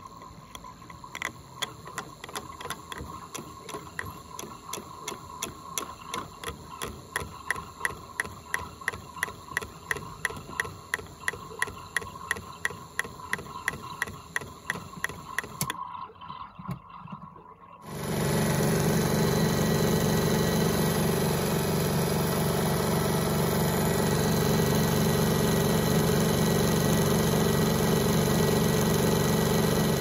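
Toy washing machine on its final spin: the drum motor whines with regular clicking about three times a second, drops out briefly around 16 seconds in, then starts again about two seconds later as a louder, steady low hum.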